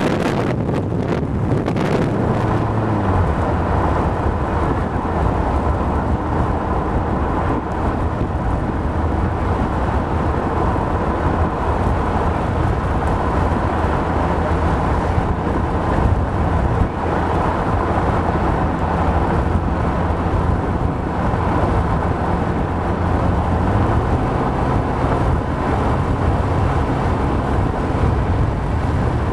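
Car engine drone and road noise heard from inside a moving vehicle, the engine tone shifting about three seconds in. Wind buffets the microphone in the first couple of seconds.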